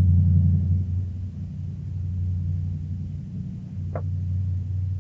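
A steady low rumble, with a single short click or crackle about four seconds in.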